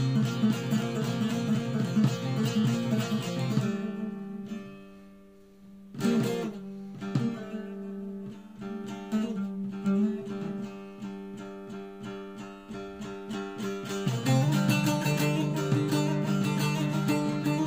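Background music on guitar, plucked and strummed. It dies down about four seconds in, comes back with a sudden chord about two seconds later, and grows fuller again near the end.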